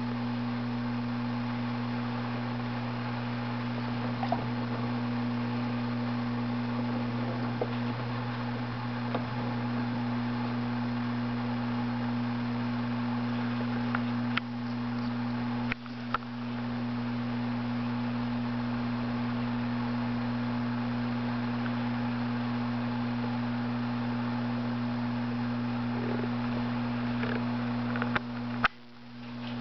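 Steady low electrical hum of a submersible aquarium filter pump running in the tank, with a few sharp clicks scattered through it. The hum dips briefly twice, about halfway and near the end.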